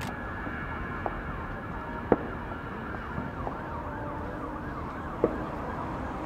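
Distant fireworks bursting: a small pop about a second in, then sharp bangs about two seconds in and again about five seconds in. Behind them a siren wails quickly up and down.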